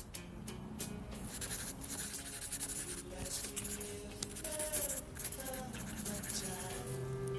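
Pen scratching on paper in quick, irregular strokes as words are written, over soft background music.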